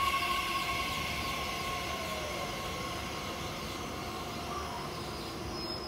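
Nishitetsu 9000 series electric train running slowly into a station as it brakes to a stop, with steady high tones from the train that fade, a faint falling whine about two seconds in, and overall running noise that gets gradually quieter.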